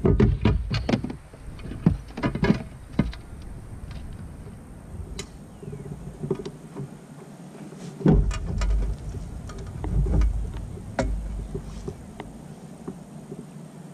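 Clicks and knocks of fishing gear being handled aboard a fishing kayak, thickest in the first few seconds and again past the middle, with bursts of low rumble at the start, about eight seconds in and around ten to eleven seconds in.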